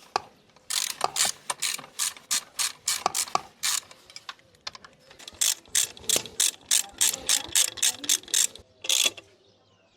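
Ratchet wrench clicking in quick runs as nuts are run onto the exhaust mounting, with a brief pause about halfway through.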